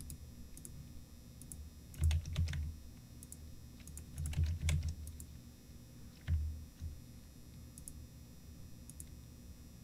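Computer keyboard being typed on: short runs of keystrokes about two, four and a half and six seconds in, with a few faint clicks between.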